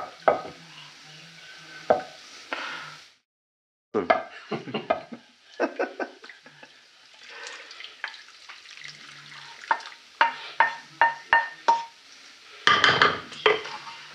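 A spoon knocking and scraping in a metal pot of tripe stew, with a run of ringing metallic clinks about ten seconds in. The sound cuts out completely for under a second about three seconds in.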